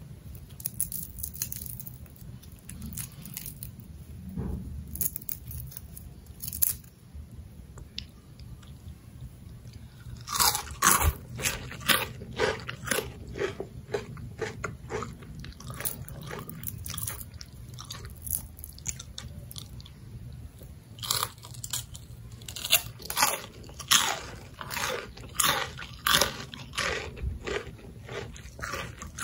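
Crispy deep-fried spiral potato being bitten and chewed: a few crunches at first, then from about ten seconds in a run of loud crunching bites and chews, a couple a second.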